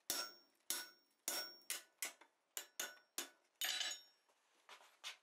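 A hand hammer strikes a slot punch held on a red-hot chromoly steel bar on the anvil, punching a slot through the bar. About nine sharp, ringing blows come at an uneven pace of two or three a second, then two lighter knocks near the end.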